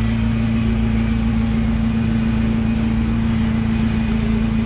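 Honda B20 four-cylinder engine idling steadily through an aftermarket muffler that is held by hand against the tailpipe for a rough sound test, not bolted on.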